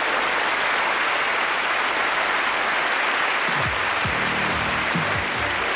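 Studio audience applauding. About halfway through, the show's closing theme music comes in underneath, led by a plucked bass line.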